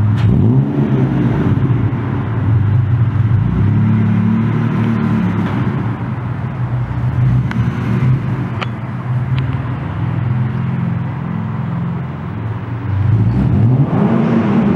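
Car engine revving, its pitch rising and falling again and again as the car slides around the concrete floor of a parking garage, growing louder near the end.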